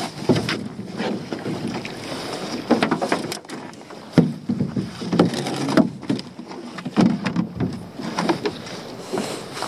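Wet pot rope hauled hand over hand over the gunwale of an aluminium dinghy to lift a lobster pot: a series of irregular pulls with scattered knocks as the line drops and coils on the metal floor.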